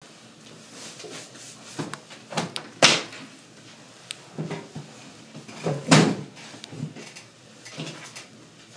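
A series of knocks and thumps of furniture being handled as a man settles into a chair, two louder ones about three and six seconds in.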